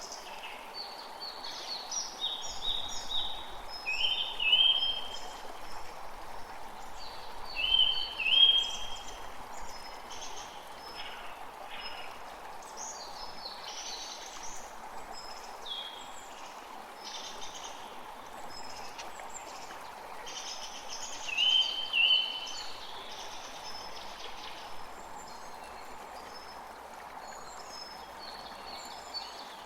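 A creek's water runs steadily while several birds sing and chirp over it. The loudest is a bright, short two-part phrase heard three times.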